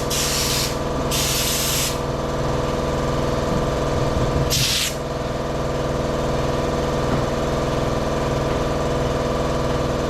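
Air-powered spray gun hissing in three short bursts in the first five seconds as it applies Raptor bedliner, over the steady hum of a machine running throughout.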